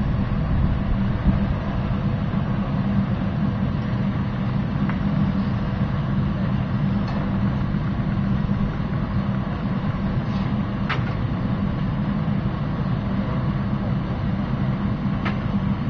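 Biomass gasifier furnace running under test: a steady mechanical drone with a low hum, from its blower and burner flame, with a few faint short ticks.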